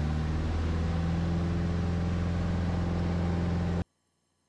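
Piper light aircraft's piston engine and propeller droning steadily in the cabin, stepping up slightly in pitch about half a second in as power is added for a missed approach (go-around). The sound cuts off abruptly near the end.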